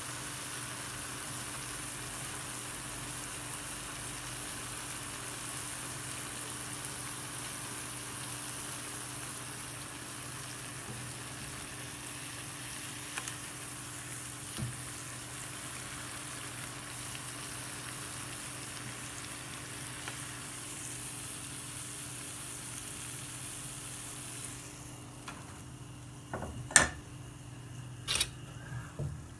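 Jalebi batter deep-frying in hot oil in a cast-iron skillet: a steady sizzling hiss. Near the end the sizzle dies down and a few sharp knocks follow as the skillet is handled on the gas stove's grate.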